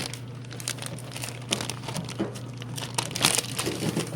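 Packaging crinkling and rustling as products are pulled out of a subscription box, in irregular crackles with the loudest flurry a little past three seconds in. A steady low electrical hum runs underneath.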